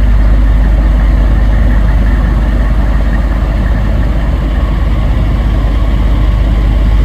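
Heavy engine running steadily at a constant, low, rumbling pitch with no revving.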